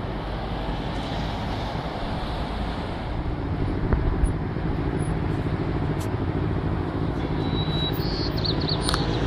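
Steady road-traffic noise: a continuous low rumble of cars queued and moving slowly on the road, with a brief high warbling tone near the end.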